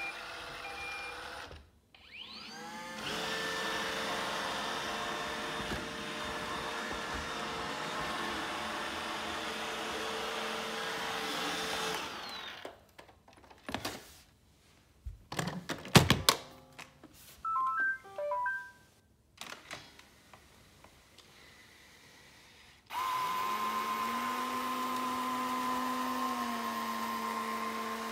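Robot vacuum cleaners running in turn. An iRobot Roomba's motors spin up with a rising whine about two seconds in and run with a steady, fairly high-pitched hum for about ten seconds, then stop. After a few knocks and clicks and a short string of beeps, a Panasonic RULO starts and runs with a steadier, lower hum.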